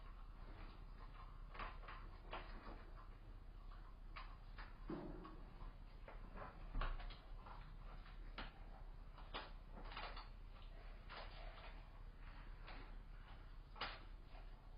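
Amur leopard kitten chewing and tearing at a small hoofed carcass: irregular crunches and clicks, one louder knock about seven seconds in, over a steady low electrical hum.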